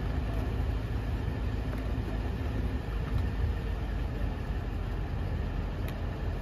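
Steady low rumble of a motor vehicle running, with no distinct events.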